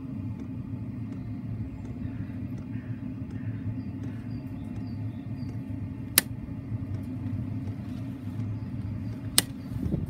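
Two sharp clicks of the Gunson's Gastester Mk2's rocker switches being flipped, one about six seconds in and another near the end, over a steady low rumble.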